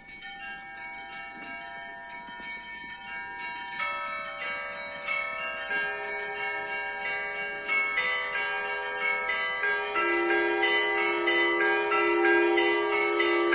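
Russian Orthodox monastery bells being rung: quick, rhythmic strikes on small high-pitched bells, joined by lower bells about four and six seconds in and a deeper, louder bell about ten seconds in. The ringing grows louder as more bells come in.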